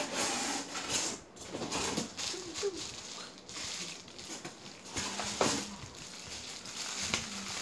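Plastic wrapping crinkling and rustling as a vacuum cleaner part is pulled out of its cardboard box, with a few knocks.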